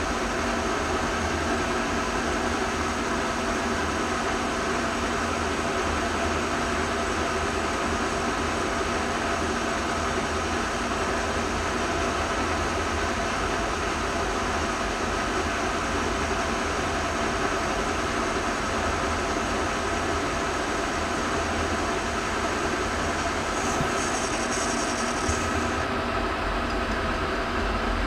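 Pacemaker engine lathe running steadily while an ACTEC CNMG carbide insert takes a turning cut on the spinning workpiece. A short higher-pitched sound joins in near the end.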